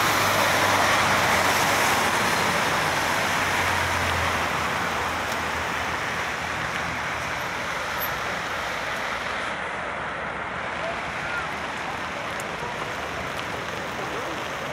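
A bus passes close by on a wet road: a low engine hum under a loud tyre hiss on wet asphalt, strongest over the first few seconds and then slowly fading. The steady hiss of rain and traffic on the wet street stays underneath.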